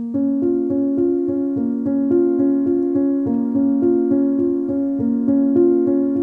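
Background music: a piano-like keyboard playing a steady, repeating pattern of notes.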